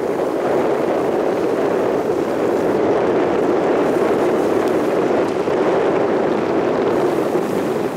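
Boat engine running steadily, an even hum with no change in pace.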